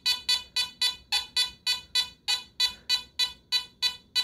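Teknetics Omega 8500 metal detector sounding a steady run of short beeps, about four a second, each fading quickly, as it picks up a small eagle button passed in front of its coil during an air test for detection depth.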